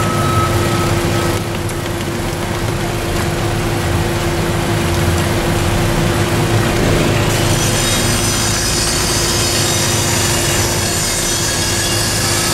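Steady hum and drone of machinery engines running on a concrete job site. About halfway through, a high hiss joins in.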